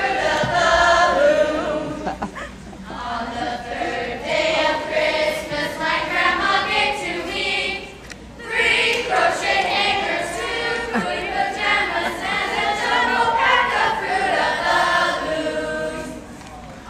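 A choir of young people singing together, with a brief pause about halfway through.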